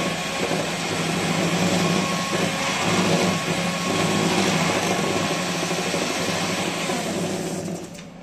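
Electric hand mixer running steadily, its beaters whipping instant coffee, sugar and water into a thick foam in a glass bowl; it switches off near the end.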